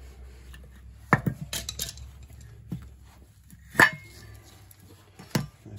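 Steel pliers and a removed brake caliper clinking and knocking together as the brake pads are worked loose: a handful of separate sharp metal clinks, the loudest a little under four seconds in.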